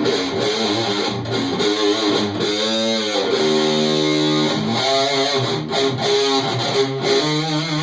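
Electric guitar, a Stratocaster, played through a stock Ram's Head Big Muff fuzz circuit built on a breadboard into a clean amp. It plays held, fuzzed notes and chords with string bends and vibrato.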